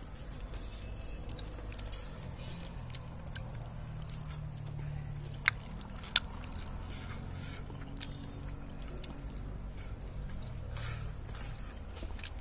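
A person chewing roasted pork close to the microphone, with two sharp clicks around the middle, over a low steady rumble.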